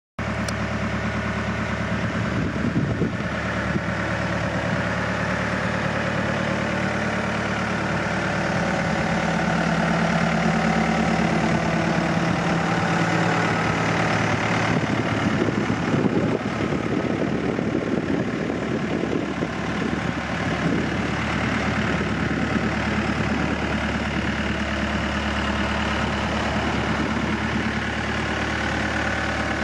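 Takeuchi TB180FR mini excavator's diesel engine idling steadily.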